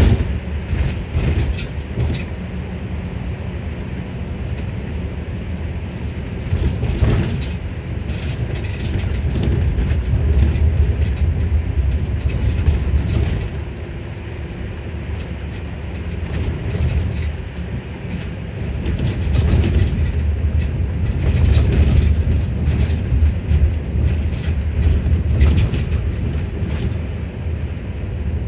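Electric bus driving on a wet road, heard from inside the passenger cabin: a steady low rumble that swells and eases, with scattered rattles and clicks.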